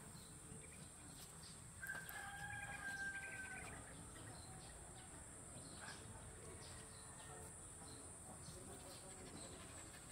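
A rooster crowing once, about two seconds in: one long, nearly level call lasting close to two seconds.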